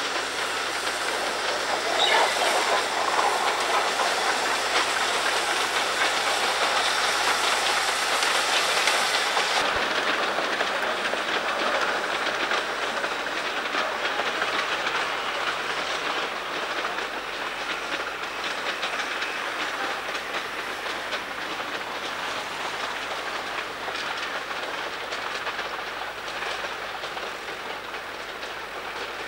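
Metre-gauge steam tank locomotive working a train, a steady mix of exhaust and steam hiss with the running noise of wheels and carriages on the track. The sound changes abruptly about ten seconds in, at a cut to another shot of the same train.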